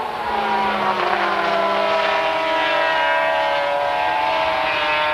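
Several racing sidecar outfits' engines at high revs, their overlapping notes sliding slowly down in pitch as they pass through a corner.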